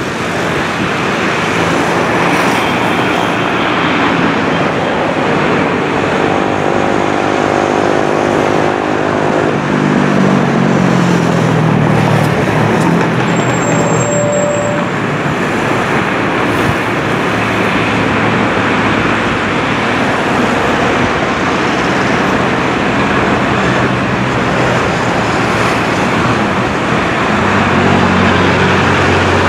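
Steady road traffic noise. About six seconds in, one vehicle passes close by, its engine note falling in pitch as it goes away.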